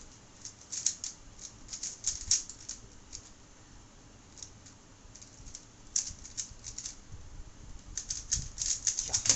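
A 3x3 speed cube being turned quickly in the hands: bursts of fast plastic clicking as the layers turn, with short pauses between bursts. There is a louder click near the end.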